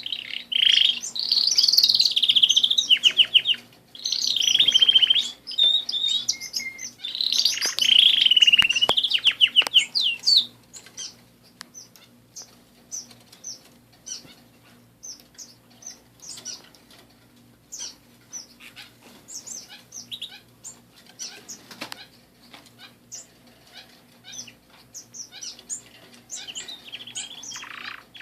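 Domestic canaries singing: loud rolling, trilled song phrases for the first ten seconds or so, then only scattered short chirps and clicks, with song starting again near the end. A faint steady hum lies underneath.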